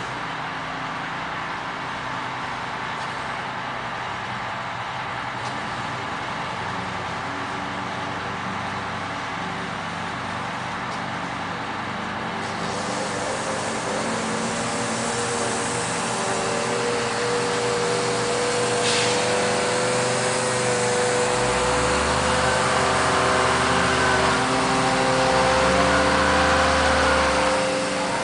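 M977 HEMTT 8x8 military truck's diesel engine running as the truck drives closer, the steady engine tone growing louder over the second half and loudest, with a deep rumble, in the last few seconds. A single sharp click about two-thirds of the way through.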